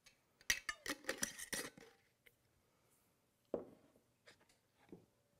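Metal lid screwed back onto a glass mason jar, a quick run of scraping clicks, then a jar set down on the wooden counter with a single knock.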